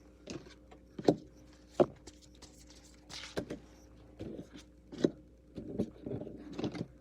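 Tarot cards being handled: irregular taps and slaps of the deck and single cards on a table, with brief rustles of cards shuffled or slid.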